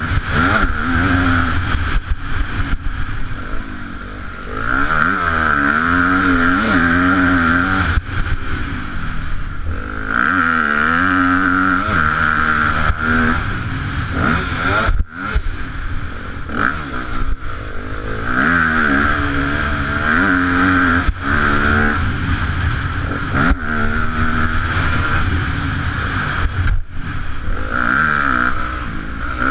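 A Yamaha YZ250F motocross bike's single-cylinder four-stroke engine, revving hard and falling off again and again as it is ridden round the track. The engine sound cuts out briefly about halfway through and again near the end.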